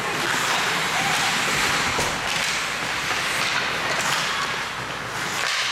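Steady noise of an ice hockey game in a rink: skates scraping the ice and spectators' voices, with a few sharp stick-and-puck knocks.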